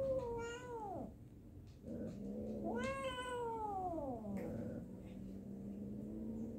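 Tabby cat giving two long, drawn-out meows, each falling in pitch at its end: the first trails off about a second in, the second runs from about two to four seconds. A lower steady tone carries on underneath through the second half.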